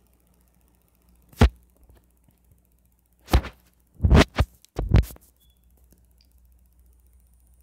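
Dull thuds of fingers tapping a touchscreen device, picked up through its own microphone: one tap, then a quick run of four or five taps.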